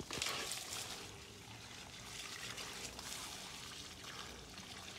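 Water running out of a garden hose, trickling and splashing onto soil and potted plants, a little louder in the first half second.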